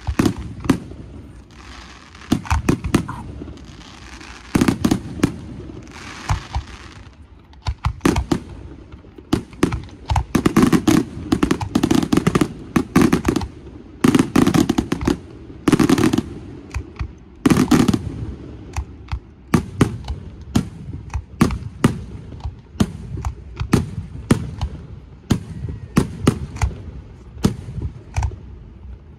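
Aerial fireworks display: shells bursting in a rapid, irregular series of sharp bangs, some much louder than others, with stretches of hissing and crackling between them.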